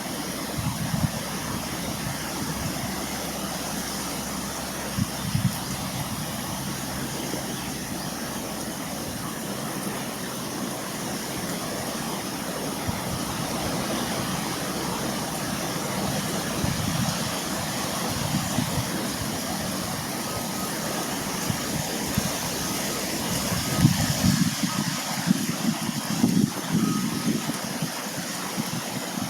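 Steady outdoor hiss with irregular low thumps of wind buffeting the microphone, the thumps more frequent near the end.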